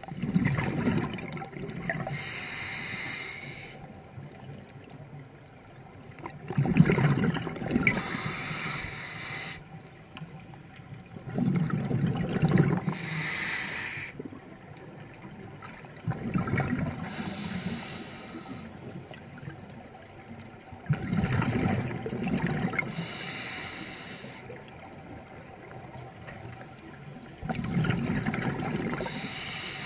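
A scuba diver breathing through a regulator underwater: about six breaths, roughly one every five seconds, each a loud rumbling gush of exhaled bubbles and a hiss of air through the regulator.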